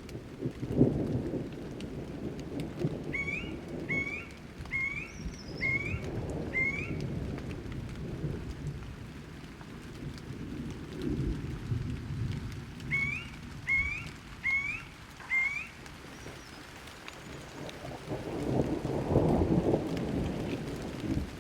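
Thunderstorm: thunder rumbling and swelling in waves over steady rain, the loudest roll near the end. A bird calls a series of short rising notes, five in a row and later four more.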